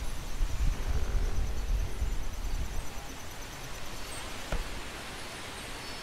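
Wind gusting through trees, leaves and branches rustling, with a low rumble that is strong at first and eases off about three seconds in. A faint click sounds about four and a half seconds in.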